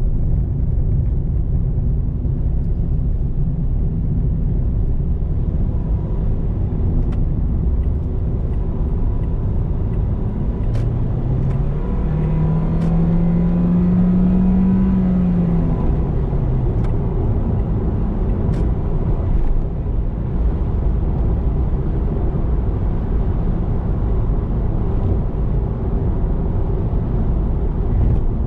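Car driving at road speed, heard from inside the cabin: a steady low rumble of tyres and engine. About halfway through, an engine note rises in pitch, holds, then falls away again.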